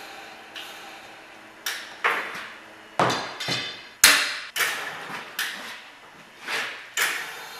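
Long metal bar levered against a vise-clamped rig, giving about a dozen irregular sharp metallic knocks and clanks, each with a short ringing decay.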